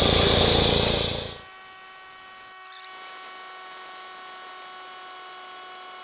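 Ingersoll Rand SCD Elite electric air compressor running and building tank pressure after new inlet finger valves and a new pressure switch were fitted. It is loud for the first second and a half, then settles to a much quieter steady hum.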